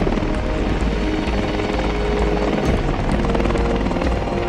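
AH-64 Apache helicopter's rotor and turbine engines running steadily as it lifts off and hovers low, with background music mixed over it.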